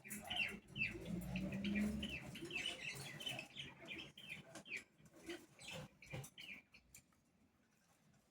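Small animals making rapid, short, high chirps or peeps, mixed with light clicking, while they eat acerola leaves. The chirping thins out after about five seconds.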